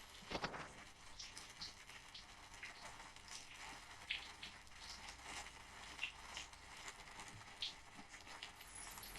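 Faint, scattered small clicks and light rustling, a few sharper ticks standing out here and there over a low hiss.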